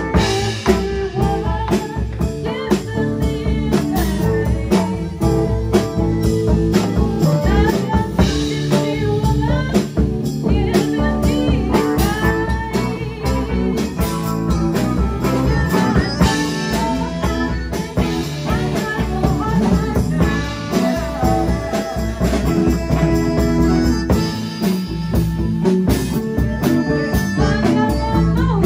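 Live blues-rock band playing, with guitar over drums and a steady beat.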